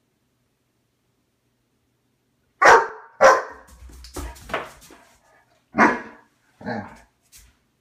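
Great Dane barking, a string of deep play barks aimed at a cat, beginning about two and a half seconds in: a few loud barks and several softer ones.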